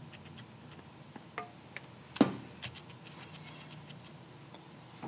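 Sparse light clicks and taps of small parts being handled at a motorcycle's shifter linkage while threadlocker is applied and the hardware is worked by hand, with one sharper click a little over two seconds in.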